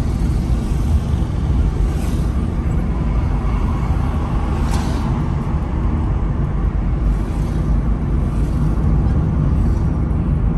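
Steady low rumble of road and engine noise inside a moving car, with two short hisses in the first half.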